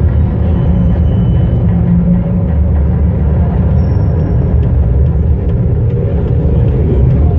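Loud, steady low rumble with faint sustained tones above it, played as part of a light-and-sound show's soundtrack.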